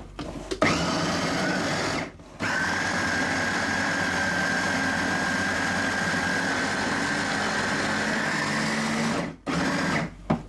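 Electric mini food chopper running as it chops minced beef and onion, with a steady high whine: a short pulse of about a second, a brief pause, then a long steady run of about seven seconds, cut off and followed by one more short pulse near the end.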